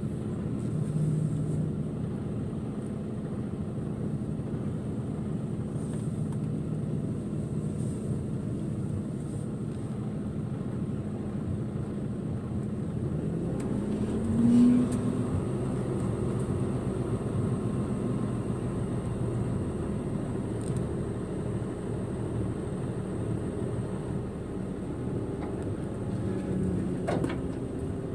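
Articulated lorry's diesel engine running steadily, heard from inside the cab. About halfway through it briefly rises in pitch and gets louder, and there is a short click near the end.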